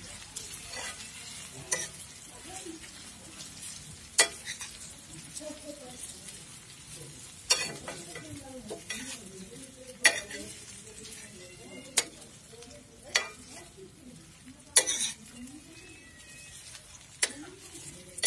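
Food sizzling in hot oil in a pan while it is stirred with a spoon, with about eight sharp knocks of the spoon against the pan at irregular intervals of a second or two.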